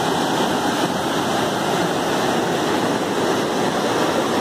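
Muddy floodwater rushing in a steady torrent: a constant, even noise.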